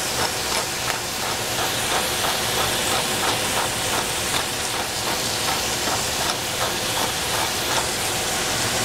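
Greens frying in oil in a stainless steel pot, a steady sizzle, with a run of short clicks about three a second that stop near the end.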